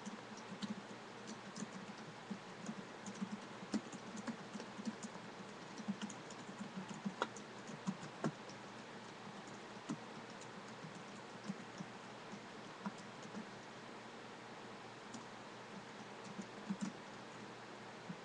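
Typing on a computer keyboard: quick irregular keystrokes in bursts, thinning out to scattered single clicks in the second half, over a steady background hiss.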